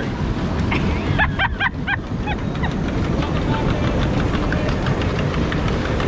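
Steady rush of churning water around a river-rapids raft, with a quick run of high chirps about a second in.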